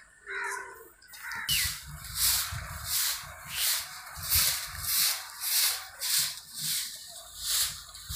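A hand broom sweeping a hard floor in steady, regular strokes, about one and a half a second. A brief animal call sounds near the start.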